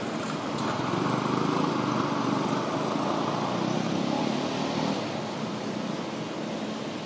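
A motor engine running, getting louder about a second in and easing off again after about five seconds.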